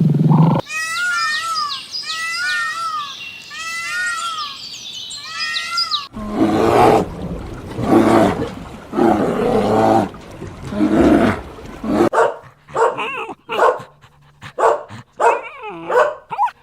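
A sequence of different animal calls: first rapid high chirps, then several deep, rough roars about a second and a half apart, then a dog's quick yips and barks.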